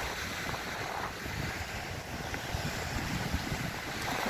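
Sea waves washing and breaking against a rocky shore, with wind buffeting the microphone in uneven low rumbles.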